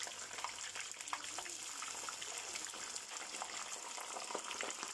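Hot cooking oil in a pot bubbling and crackling as raw potato chips are tipped in from a bowl to deep-fry.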